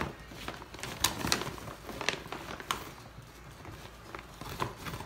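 A puppy's claws clicking and tapping on a hardwood floor in a loose, irregular run of light clicks as the excited dog shifts about.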